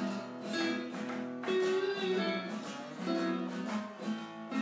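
Background guitar music with chords strummed in a steady rhythm.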